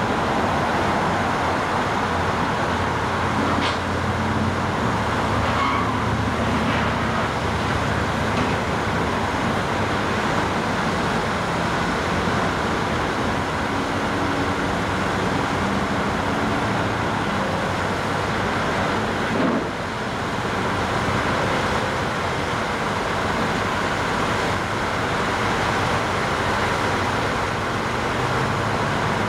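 Steady engine noise, with a few brief knocks or clanks standing out now and then.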